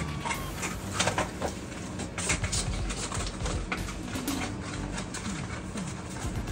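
Handling noise from unpacking small parts: cardboard boxes and packaging rustling, with irregular light clicks and knocks as pieces are picked up and set down.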